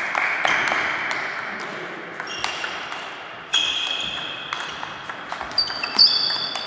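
Table tennis rally: the celluloid-type ball clicking sharply off rubber bats and the table many times, echoing in a large sports hall. Several high squeaks of sports shoes on the hall floor, the loudest from about three and a half seconds in.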